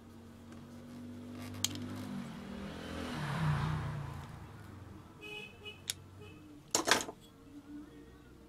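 Light metallic clicks and clinks of pliers and an aluminium heatsink being handled, ending with a short clatter as the heatsink is set down on the bench about seven seconds in. A low rumble swells and fades in the middle.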